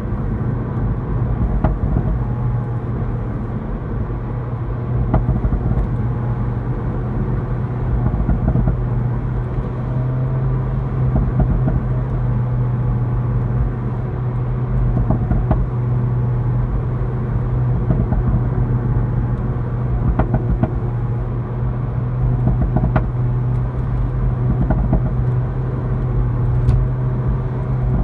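Seat Leon Cupra 290's turbocharged 2.0-litre four-cylinder engine running with a steady drone through its standard exhaust with a particulate filter. Scattered sharp pops and crackles sound from the exhaust on overrun, about ten of them spread through the drone.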